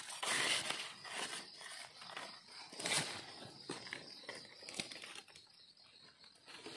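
Dry leaves and twigs on the forest floor rustling and crackling under a hand rummaging through the litter to pick mushrooms, loudest in the first second and again about three seconds in.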